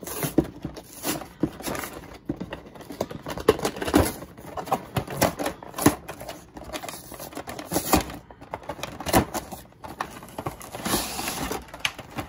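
Cardboard product box being handled and opened: irregular taps, knocks and scrapes of cardboard, with a longer rustle of packaging near the end.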